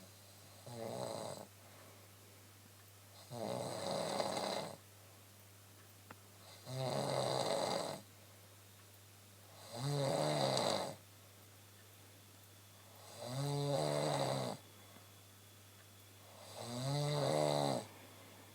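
A woman snoring steadily in her sleep: six rasping snores, each about a second long, recurring about every three seconds, over a low steady hum.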